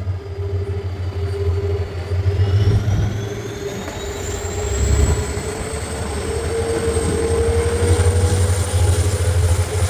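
WDP4 (EMD) diesel locomotive's two-stroke engine working under load, a steady deep hum with a high whine that climbs steadily in pitch from about two seconds in, as the engine and train pick up.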